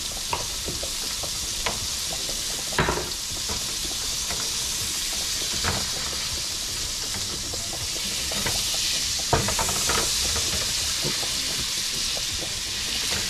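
Blackening-seasoned red snapper fillets sizzling in melted butter in a hot skillet, a steady high hiss that grows a little louder about two-thirds of the way through. A spatula knocks and scrapes against the pan a few times.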